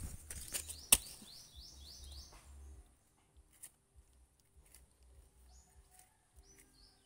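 Two sharp knocks about a second apart, a bolo blade striking a bamboo shoot, with a bird singing a rapid run of short high chirps over the first two and a half seconds. After that it goes faint, with only scattered ticks and chirps.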